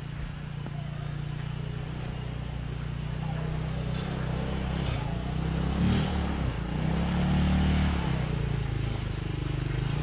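Off-road go-kart engine running as the kart drives toward the microphone, growing steadily louder. Its note rises and falls as it revs about six seconds in and again near eight seconds.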